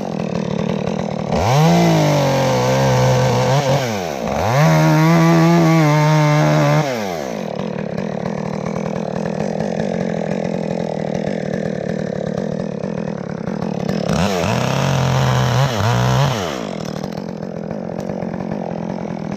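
Two-stroke chainsaw revved to full throttle in three bursts while cutting out a treetop. Its pitch rises sharply into each burst and falls back to a lower idle between them.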